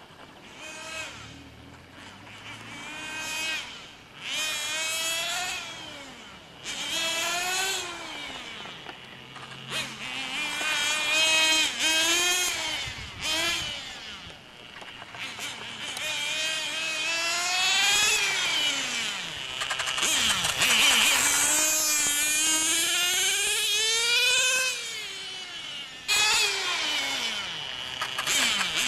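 Radio-controlled model motorcycles racing, their small engines buzzing in a high pitch that rises and falls again and again as they accelerate, brake and pass by. At times more than one bike is heard at once.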